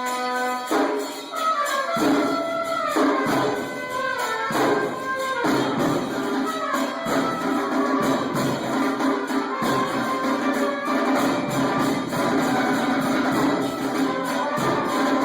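Music: an orchestral piece with brass and a jingling tambourine-like shimmer, playing steadily.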